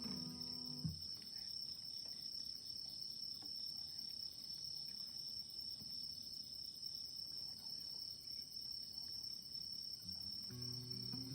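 Crickets trilling steadily in a high, even tone. An acoustic guitar chord dies away in the first second, and guitar notes start again shortly before the end.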